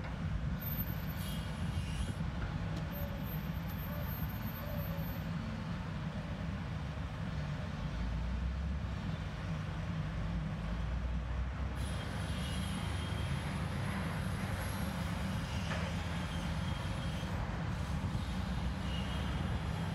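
Steady low road and engine rumble heard from inside a moving car.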